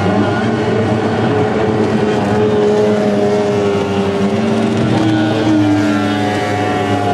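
Racing outboard motors running at high revs as race boats speed along the river, several engine tones heard at once; one tone slides lower in pitch as its boat runs away under the bridge.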